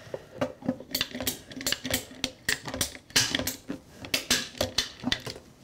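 Irregular clicking and clattering of a plastic dehumidifier drain hose being handled, positioned over the drain and cut to length.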